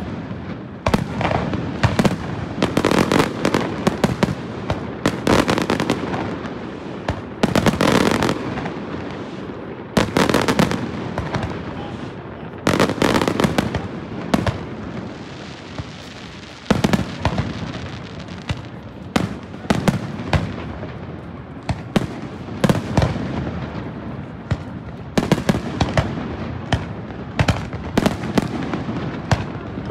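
Aerial firework shells bursting over and over, sharp bangs that come singly and in quick clusters, with a rolling rumble after them.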